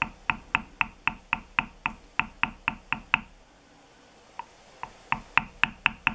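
A mallet tapping a steel bevelling tool into damp tooling leather on a marble slab, bevelling (chamfering) the outlines of the design so the figure stands out. Quick, even taps about four a second stop a little past the halfway mark. After two light single taps, they start again near the end.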